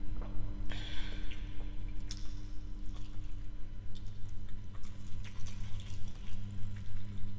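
Close, wet chewing and lip-smacking of a mouthful of jollof rice, a run of quick moist clicks, with a brief rustle about a second in. A steady low hum runs underneath.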